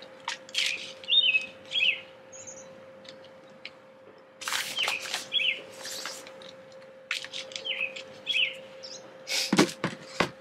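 A songbird calling over and over in short, downward-slurred chirps, mostly in pairs, repeating every few seconds. Between the calls come rustling and scraping from potting soil and plastic pots being handled, with a louder knock near the end, over a faint steady hum.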